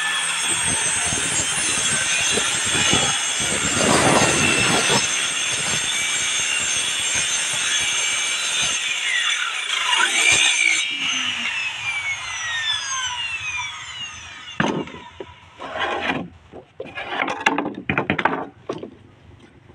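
Corded circular saw running and cutting through a plywood sheet, then switched off about ten seconds in, its whine falling as the blade spins down. A few short knocks and scrapes follow near the end.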